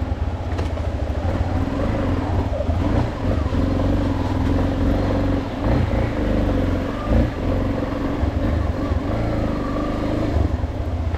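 Yamaha Lander XTZ 250's single-cylinder engine running steadily as the motorcycle is ridden, with a fast, even firing pulse.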